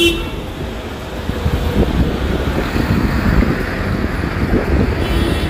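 Road and wind noise from a moving vehicle: a steady rumble and rush, with wind buffeting the microphone.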